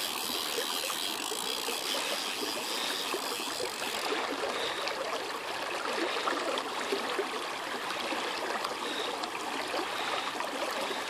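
River water running steadily over a shallow stony bed and swirling around a wading angler's legs: a continuous babbling rush.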